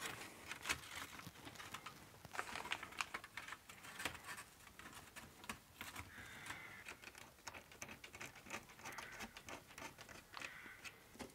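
Faint, irregular small clicks and light scraping of the Amiga 600's sheet-metal shielding and motherboard being handled and fitted together by hand.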